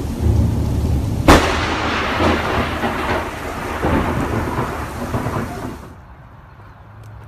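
Thunder from a lightning strike: a sharp crack about a second in, then a crackling rumble that dies away around six seconds in.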